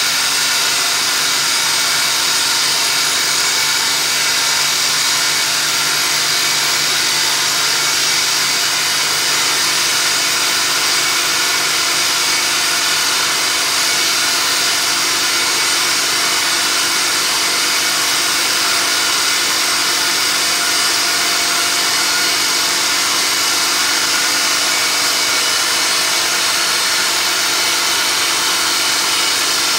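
Milling-machine spindle running steadily as its cutter machines the pump bore of a 6L80/90 transmission pump, a steady high-pitched cutting noise.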